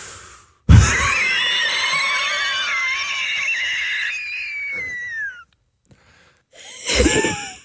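A person's long, high-pitched wheezing laugh in the style of the 'Damnit Maurie' wheeze laugh: it starts with a sharp thump, then holds a thin wavering squeal for about five seconds that slides down in pitch as it runs out. A second, shorter burst of laughing follows near the end.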